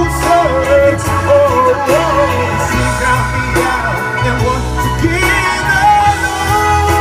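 R&B pop song playing: a sung vocal line with gliding runs over a steady bass and backing track.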